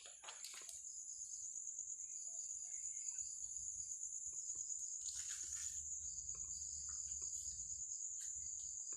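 Crickets chirring in a steady, high-pitched drone, with a brief noisy rustle about five seconds in.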